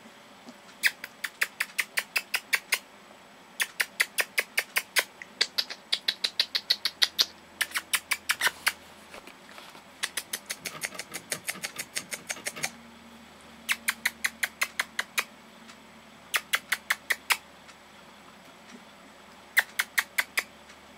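Rapid runs of sharp mouth clicks, about six a second, each run lasting a second or two and repeated many times, made by a person to draw the puppies' attention.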